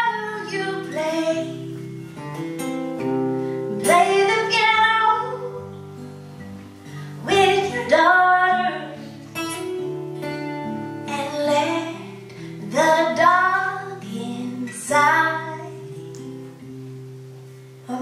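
Acoustic guitar chords ringing under a woman's singing voice, which comes in several phrases with gliding pitch.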